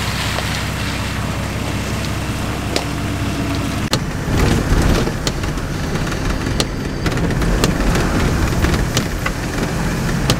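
4WD diesel engine idling steadily under falling rain. About four seconds in it changes abruptly to noise inside the cab of a Nissan Patrol with a TD42 diesel driving a wet gravel track: engine and tyre noise with frequent knocks and rattles.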